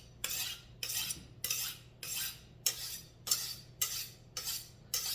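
Kitchen knife being sharpened: the blade drawn again and again across a sharpener in even strokes, a little under two a second, each a short scraping swish.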